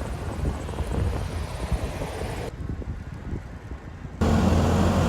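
Vehicle noise, a rumbling wash like traffic on a road, which cuts off abruptly about halfway. After a quieter stretch, a louder steady low hum starts suddenly near the end.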